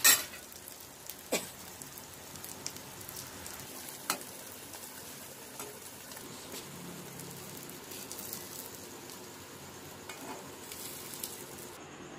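Egg-and-onion omelette sizzling in hot oil in a kadai, a steady frying hiss. There is a sharp click at the start and a few fainter clicks after it.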